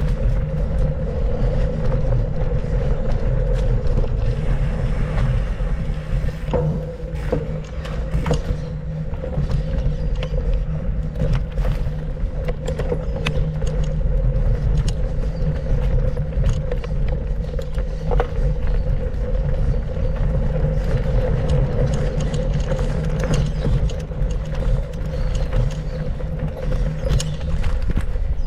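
Mountain bike on a cross-country trail heard from a camera riding with it: a steady deep rumble of wind and tyres, with scattered rattles and knocks from the bike over rough ground.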